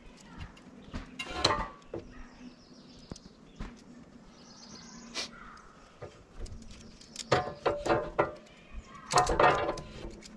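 Handling noise from fitting a metal mounting plate and strap to a spare tire on a swing-out carrier: scattered clicks and rattles, with a clatter about one and a half seconds in and more clatters near the end. Birds chirp faintly in between.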